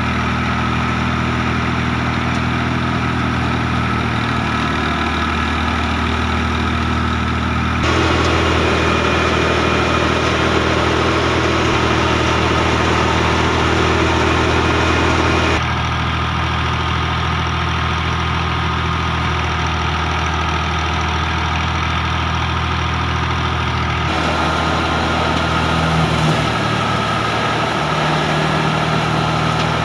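Al Ghazi tractor's diesel engine running steadily, driving a mustard thresher through its belt drive, with the whir and rush of the thresher drum as mustard straw is fed in. The balance between engine and thresher noise shifts abruptly a few times.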